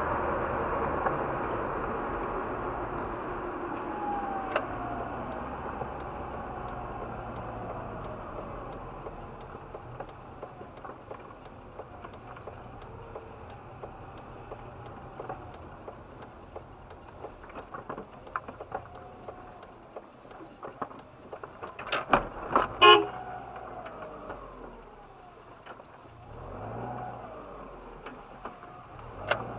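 Car cabin road and engine noise fading as the car slows down, then a short, loud car horn blast about 23 seconds in, just after a couple of sharp clicks.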